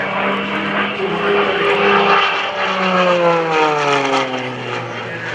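MXS aerobatic plane's piston engine and propeller passing close in a smoke-trailing pass, a steady drone whose pitch slides down from about three seconds in as it goes by.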